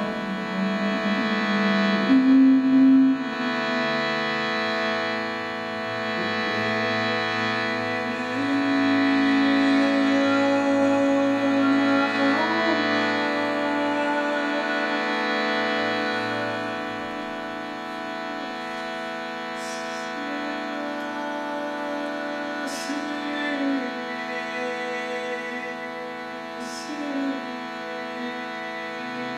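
Harmonium-type hand-pumped reed instrument playing a steady drone chord, with a slow line of notes over it, each held for several seconds. A few light ticks sound late on.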